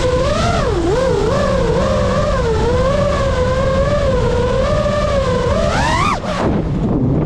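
GEPRC Mark 5 five-inch FPV quadcopter's brushless motors and propellers whining, the pitch wavering up and down with the throttle. About six seconds in the whine climbs sharply, then falls away as the throttle is chopped, and rises again near the end.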